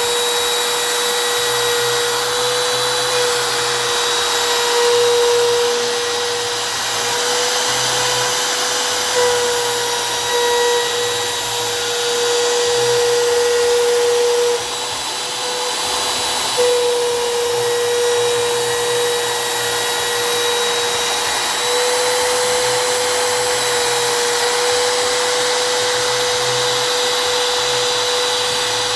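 CNC router spindle running, routing PVC: a steady high whine over a hiss. The whine weakens and the sound drops for about two seconds around the middle, then picks up again.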